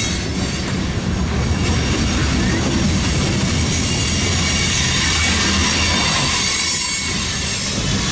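Freight cars (loaded flatcars, then boxcars) rolling past close by: a loud, steady rumble and rattle of steel wheels on the rails.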